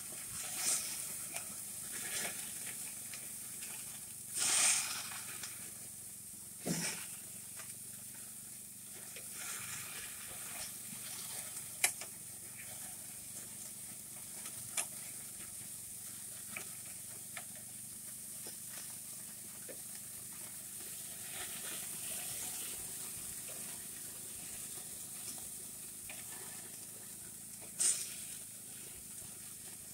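Hamburger patties sizzling over open flames on a gas grill, with fat flaring in the fire. A few sharp clicks and scrapes of a metal spatula on the grate cut through the steady hiss.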